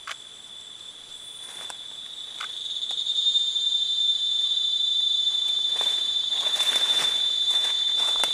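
Insect drone in the rainforest canopy: one steady high-pitched tone that swells over the first few seconds and then holds level. Leaves and branches rustle and crackle in the second half as the orangutan works leafy branches into its nest.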